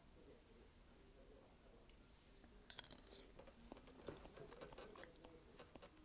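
Faint close-up eating sounds from a malatang mukbang: soft chewing and small wet clicks, with a short cluster of sharper clicks about three seconds in.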